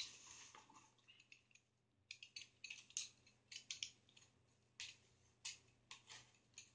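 Faint, irregular scrapes and clicks of a utility knife cutting the packing tape along the top of a cardboard box.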